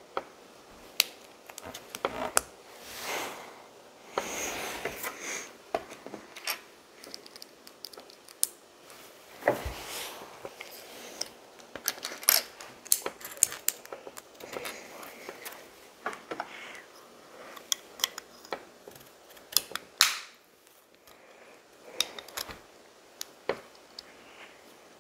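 Plastic LEGO bricks being handled and snapped together: irregular sharp clicks and small clatters, with a few short rustles as pieces are picked over.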